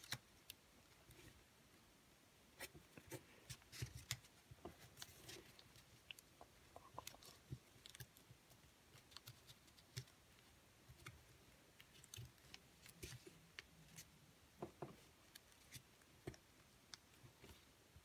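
Faint, irregular crinkling and small clicks of origami paper being creased and folded by hand.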